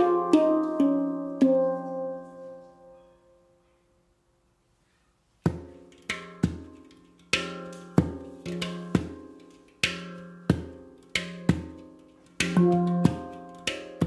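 L'Atelier de Maru STL-model handpan tuned to F Integral 10 (F ding; C Db Eb F G Ab C Db Eb), played by hand. A quick run of ringing notes fades away about three seconds in, and after a silence of about two seconds a slower rhythmic groove starts: sharp percussive strikes on the deep centre note and the tone fields, about one or two a second.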